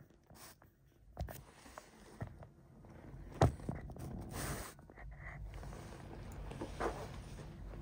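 Faint rustling and scattered light clicks, with one sharper click about three and a half seconds in.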